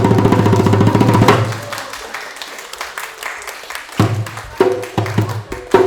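Music with drums and percussion: rapid drum hits over a low held note, fading about a second and a half in, then a steady repeating beat with sharp clicks from about four seconds in.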